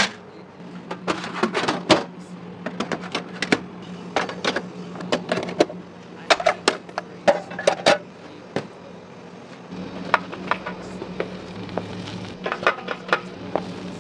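Stainless-steel hotel pans, lids and utensils being handled, giving an irregular series of sharp metallic clicks and clunks over a steady low hum.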